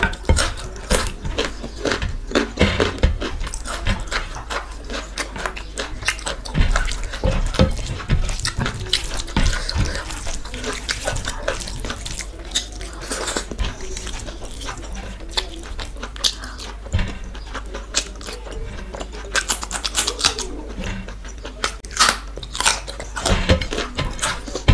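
Close-miked eating sounds: fingers squishing rice and curry together on a plate, with wet chewing and lip smacking in many irregular clicks.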